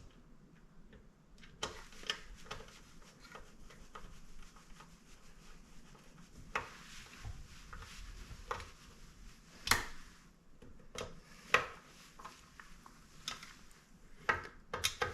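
Irregular small metal clicks and scraping from screws with lock washers being handled and driven back into the mixer's aluminium housing with a screwdriver, a dozen or so sharp ticks spread out, several close together near the end.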